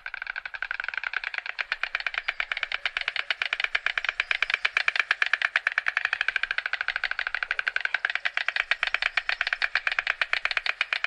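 White stork clattering its bill: a rapid, even rattle of clicks kept up without a break.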